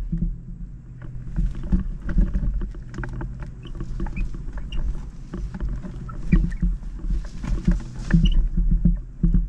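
Wind gusting over the microphone with a low, buffeting rumble that swells and falls, mixed with scattered clicks and rustles from the hang glider and harness being held on launch.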